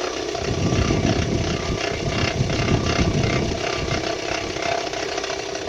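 Vehicle engine running with a rhythmic knock of about three strokes a second. The knock grows louder for a few seconds and then eases off.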